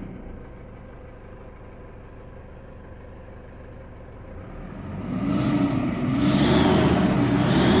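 Toyota Hilux 2KD diesel engine idling steadily, then revved up and down several times from about five seconds in, with a high hiss over the engine during the revs. The owner is trying to catch an intermittent whistle that seems to come from the air intake.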